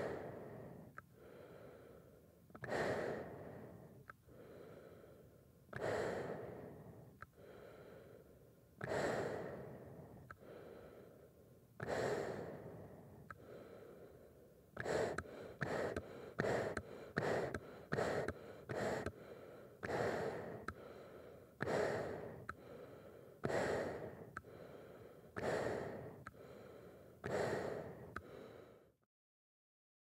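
A person breathing heavily through a large paint respirator mask. Slow breaths come about every three seconds, each starting sharply and trailing off; past the middle comes a run of quick short breaths, about two a second, before the pace slows again. The breathing stops about a second before the end.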